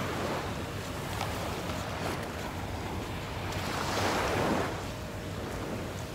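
Small waves washing onto a sandy shore, a steady surf hiss with one wave swelling up and washing in about four seconds in, and wind rumbling on the microphone.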